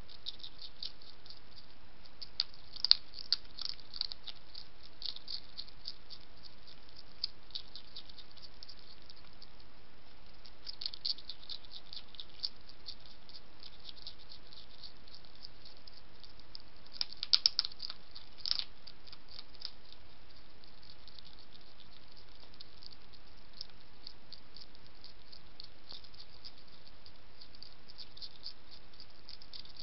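A hedgehog crunching dry kitten-food biscuits: a long run of quick, crisp clicks over a steady hiss, with louder bursts of crunching a few seconds in and again a little past halfway.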